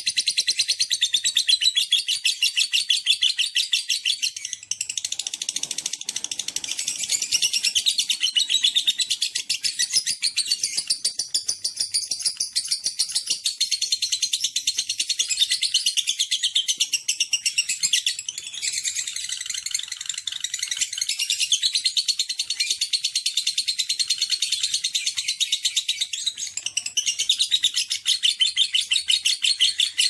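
Caged lovebird singing its 'ngekek' song: a long, rapid, high-pitched chattering trill of fast repeated notes, almost unbroken, with brief breaks about 5, 18 and 26 seconds in.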